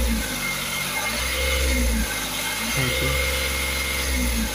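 Ashok Leyland Dost's diesel engine idling unevenly, its low running sound swelling and dropping every second or so. This is the idle hunting noted just after the engine was rebuilt and its timing belt set.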